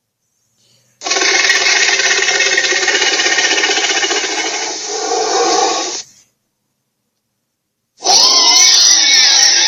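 Creature sound effects for a made-up tiger-gorilla beast: a harsh, rough sustained call about five seconds long that stops abruptly, then after a two-second pause another call with a wavering pitch starts near the end.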